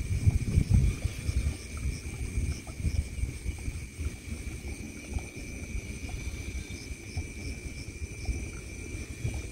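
Wind rumbling and buffeting on the microphone, with gusts strongest in the first second. Behind it runs a steady high drone of night insects such as crickets.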